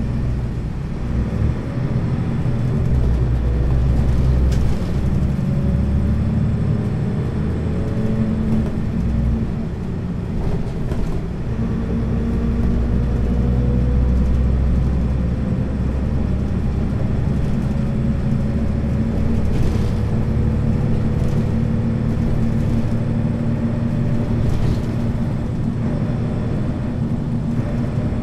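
1999 Neoplan N 4411 Centroliner midibus with its Voith automatic gearbox, driving: a steady engine drone with a fainter whine that rises slowly in pitch twice, easing off briefly about ten seconds in.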